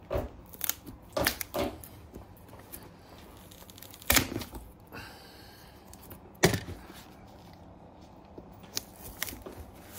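A knife blade pried into the heel of a leather boot, with short cracks and snaps as the old heel and its compressed-paper-and-cardboard heel base break apart. Two louder snaps come about four and six and a half seconds in, with a brief scrape between them.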